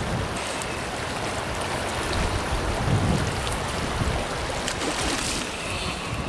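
River current running over a shallow gravel bed, with wind gusting on the microphone and a few faint clicks.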